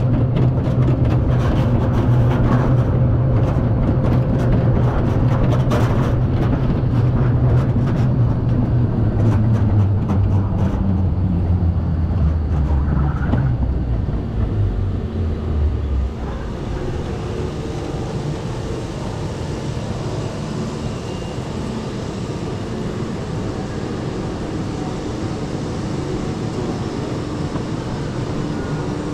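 Bobsled-style roller coaster car rolling on its track, a loud rumble with clattering that falls steadily in pitch as the car slows. After about sixteen seconds it drops to a quieter, even background.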